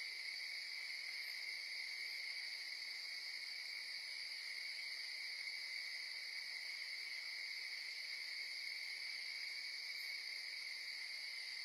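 Steady high-pitched chorus of night insects, an unbroken shrill drone that holds even throughout.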